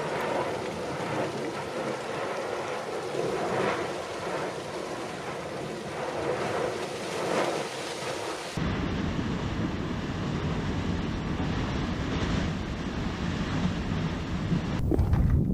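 Steady outdoor rushing noise with faint crackling, changing abruptly about eight and a half seconds in to a low, blustery rumble of wind on the microphone.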